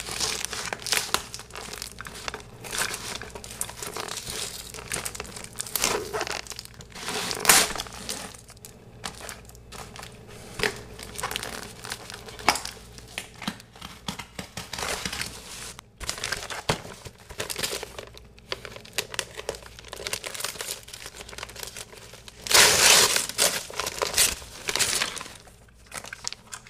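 Packaging being torn open and crumpled by hand while unboxing a part: irregular rustling, crinkling and tearing, loudest in a burst about three seconds before the end.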